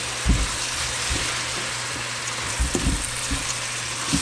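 Rice frying in butter and onions in a pot: a steady sizzling hiss, with a few dull knocks of the spoon against the pot as it is stirred.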